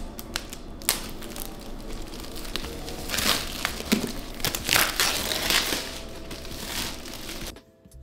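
Clear plastic wrap being peeled off a cardboard headphone box and crumpled, a run of crinkling and sharp crackles that stops abruptly near the end.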